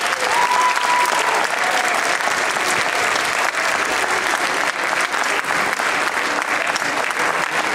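Large audience applauding steadily, dense continuous clapping with scattered voices calling out among it.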